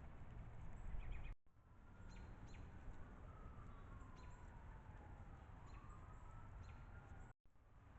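Faint outdoor ambience from a trail camera: a few short, high chirps and faint, drawn-out tones sliding slowly in pitch over a low background hiss. The sound drops out abruptly twice at cuts between clips.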